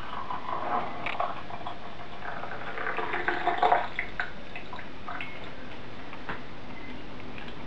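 Coffee poured from a glass French press into a ceramic mug, a splashing, filling pour over the first four seconds that is loudest just before it stops. A few light knocks follow.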